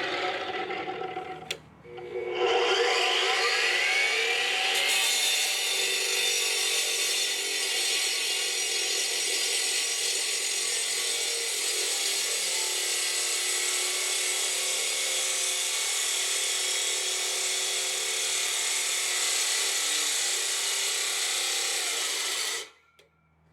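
Electric power saw cutting wood. A first run breaks off about a second and a half in, then the motor spins up again with a rising whine and runs steadily until it cuts off suddenly near the end.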